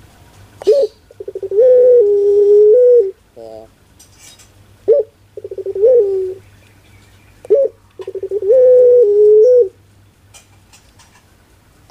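Barbary dove (puter) cooing three times; each call is a short rising note, then a quick stuttering run, then a long held coo.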